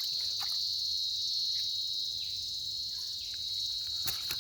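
Steady insect chorus, a continuous high-pitched shrill drone, with a brief click near the end.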